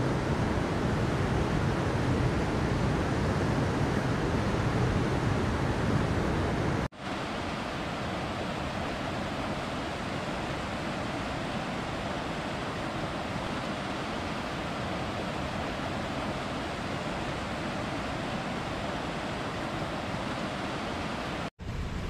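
Steady rush of a mountain stream pouring over rocks. About seven seconds in it cuts out for an instant and comes back quieter and lighter, with less of the deep rumble, and it cuts out briefly again near the end.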